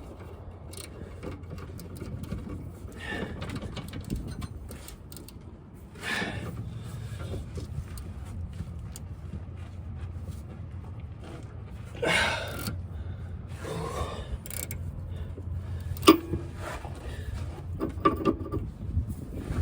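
Hand tools working a stuck sway bar link nut: a wrench and hex bit clinking and scraping against the metal in scattered clicks and knocks, the sharpest knock late on, over a steady low hum.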